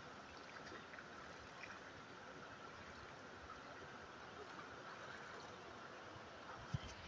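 Faint, steady rushing of a shallow river flowing over rocks, with a brief low thump near the end.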